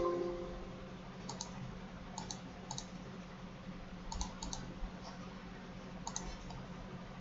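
Computer mouse clicked several times at irregular intervals, each click a short double tick of press and release, over a low steady hum.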